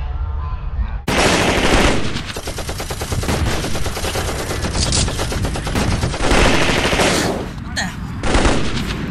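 Automatic machine-gun fire sound effect: rapid continuous shots that start suddenly about a second in and run for several seconds, breaking into shorter bursts near the end.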